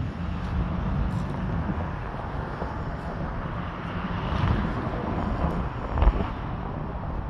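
Yamaha 250 SHO V6 four-stroke outboard running steadily, with wind buffeting the microphone and a single thump about six seconds in.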